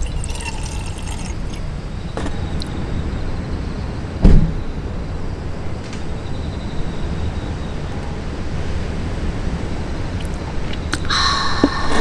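Whisky poured from its bottle into a stainless steel cup in the first second or so, over a steady low rumble. A single loud thump comes about four seconds in. Near the end there is a breathy exclamation after a sip of the strong spirit.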